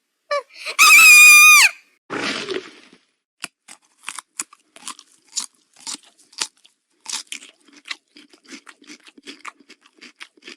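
Horror sound effect: a high-pitched scream held for under a second that falls off as it ends, then a short rough noise, then several seconds of irregular crunching and chewing, a creature eating.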